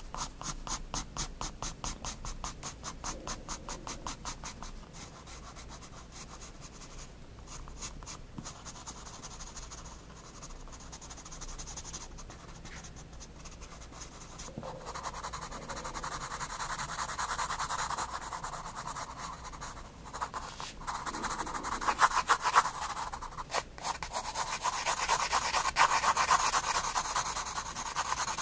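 9B graphite pencil scratching on sketchbook paper. The strokes are short and quick, several a second, at first. In the second half they turn into longer, steadier shading strokes that grow louder.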